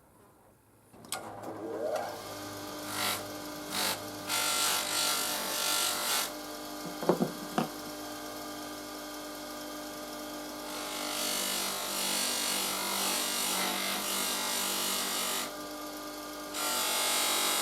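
A workshop power tool's motor starts up about a second in and runs steadily, with repeated hissy bursts of cutting or grinding noise as it works metal.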